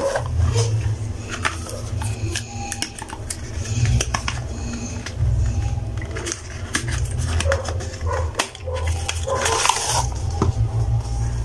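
Cardboard box and plastic packaging handled during an unboxing: irregular rustling, crinkling and small clicks as skincare tubes and boxes are lifted out, with a low steady rumble underneath.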